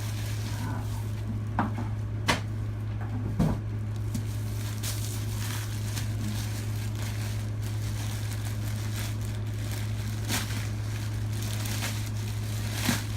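Packaging crinkling and rustling as a subscription box is opened and its contents unwrapped, with a few sharp taps scattered through, over a steady hum.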